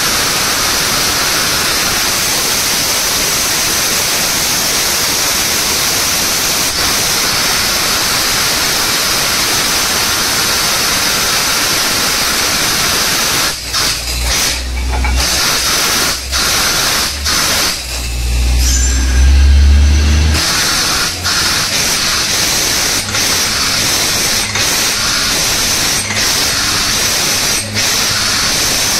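6.5-inch borewell drilling rig at work: a loud, steady rushing noise that briefly drops out several times in the second half, with a heavy low rumble swelling about eighteen to twenty seconds in.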